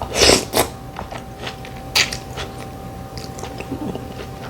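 Close-miked eating sounds from a person chewing: smacking and small wet clicks, with a louder noisy burst just after the start and another about two seconds in.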